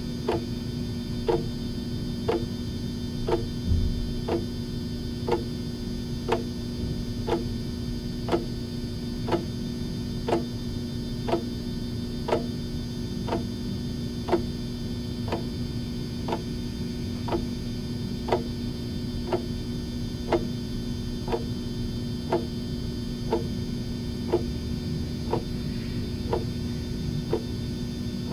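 Clock ticking steadily about once a second over a steady low hum.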